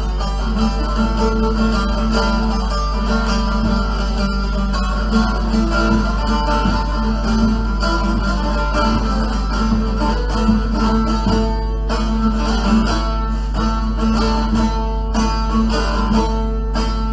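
Bağlama (long-necked Turkish saz) played solo: a steady run of quick plucked notes with the low strings ringing on underneath.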